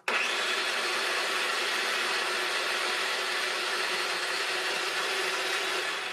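Ninja Precision Processor's motor running its auto-spiralizer, cutting a piece of butternut squash pressed down the chute with the food pusher: loud, steady motor noise that starts abruptly and begins to die away near the end.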